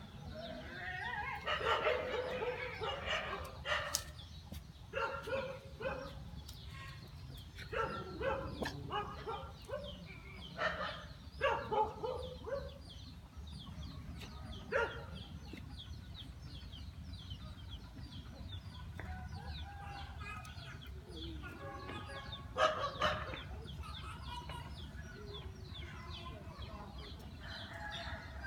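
Animal calls in short repeated bursts, clustered through the first half and again once about 22 seconds in, over a steady low rumble.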